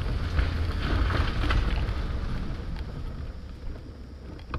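Wind rumbling on the microphone, mixed with the sound of the boat trailer rolling slowly behind a pickup truck. The rumble eases off in the second half, and a single short knock comes just before the end.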